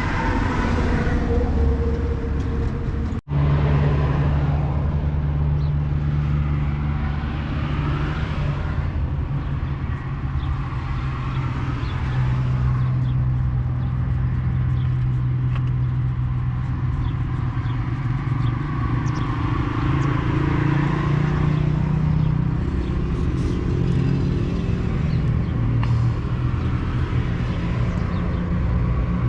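Komatsu bulldozer's diesel engine running steadily, with a sudden brief break in the sound about three seconds in.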